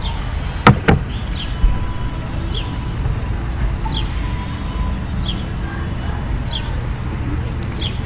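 A bird chirping over and over, short high chirps that slide downward about once a second, over a steady low room hum. Two sharp clicks close together about a second in.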